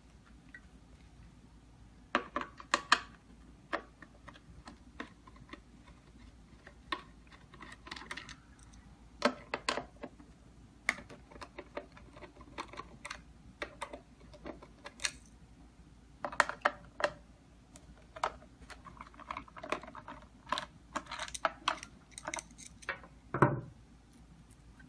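Irregular clicks, taps and light rattles of the keypad door lock's back panel and its fittings being handled and taken off the door, with a fuller knock near the end.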